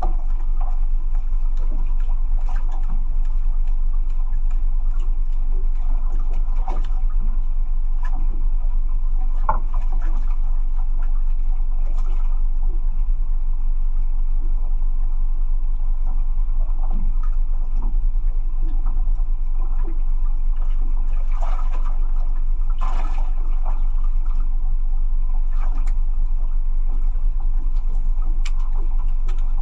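Small boat engine running steadily with a low drone, with water splashing and occasional knocks against the hull.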